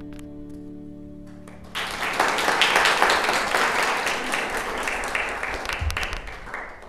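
The accompaniment's last held chord dies away, then about two seconds in an audience breaks into applause, which slowly thins out towards the end.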